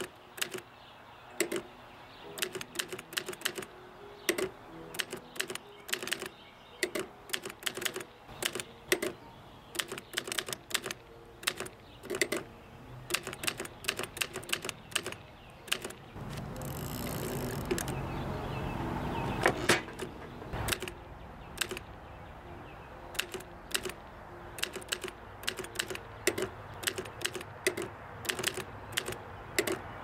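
Olivetti M40 manual typewriter typing: irregular sharp clacks of the typebars striking the paper, a few a second. About halfway through, a few seconds of rushing noise builds up and ends in a hard knock, then the typing goes on.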